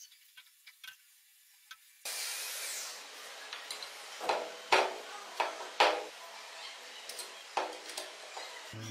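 Small metal clinks and knocks as steel gear-shaft parts are fitted into an aluminium Vespa engine crankcase half, with a few faint ticks at first and a steady hiss coming in about two seconds in.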